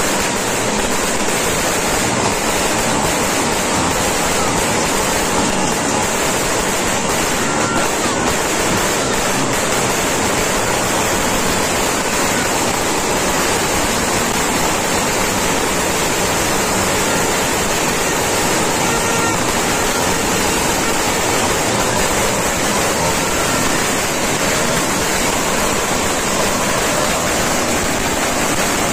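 A dense, continuous barrage of firecrackers and fireworks, so many bangs and crackles at once that they merge into a steady wash of noise with no single blast standing out.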